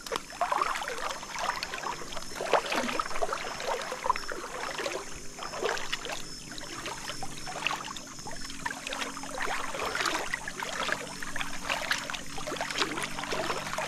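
Irregular water splashing and sloshing in shallow river water as a fishing net is worked by hand, with a faint steady high-pitched tone throughout.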